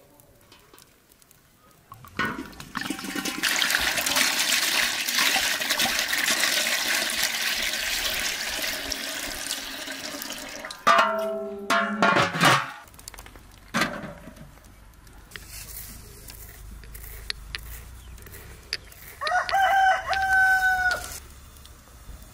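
Water poured in a long steady stream from a clay jug into a large cooking pot, then a few knocks as the metal lid goes on. A rooster crows near the end.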